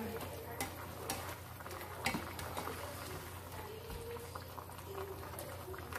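Chicken and vegetable broth at the boil in an open pan, bubbling steadily, with a few light taps of a spatula against the pan in the first couple of seconds as it is stirred.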